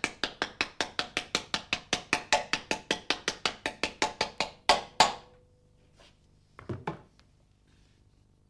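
Hammer tapping rapidly and evenly on a crankshaft rear oil seal replacer tool, about six light blows a second, drifting the crankshaft rear oil seal into its housing. About four and a half seconds in come two harder blows, then the tapping stops, with a couple of faint knocks about two seconds later.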